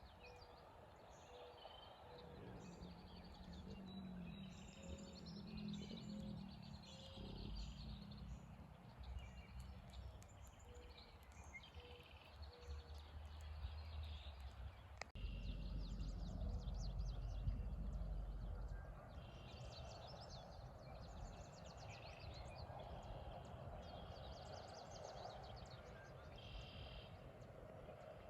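Small birds chirping and calling repeatedly over a low, steady background rumble, which changes abruptly about halfway through.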